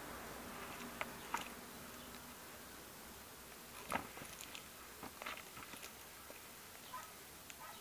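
A kitten scuffling with a fabric toy in a plastic basin: scattered light scrapes and clicks of claws and paws on the plastic as it wrestles and bites the toy. The sharpest click comes about four seconds in.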